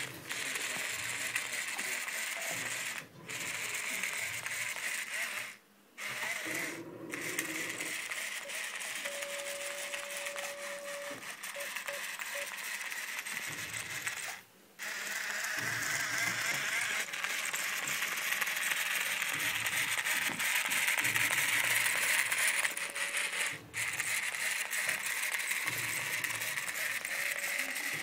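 Remote-control toy tarantula walking, its small motor and gear-driven legs making a steady whirring rattle with fast clicking. It stops for a moment about five times.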